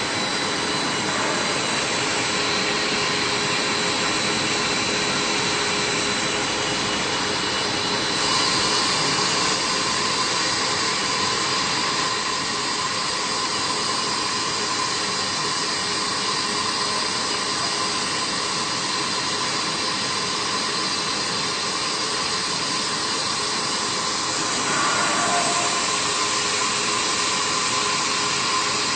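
22DTA fine wire drawing machine with annealer running: a steady whirring hiss with a thin high whine over it, getting a little brighter about eight seconds in.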